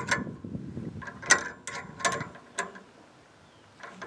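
Several sharp, irregular metallic clicks and clinks with short ringing as a hand tool works on the steel frame of a sawmill head, with a quiet pause near the end before one more click.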